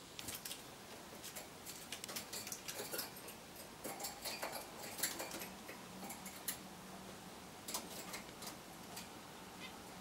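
Small pet cage birds (canaries, zebra finches and a house sparrow) giving a run of short chirps and clicks, loudest about five seconds in.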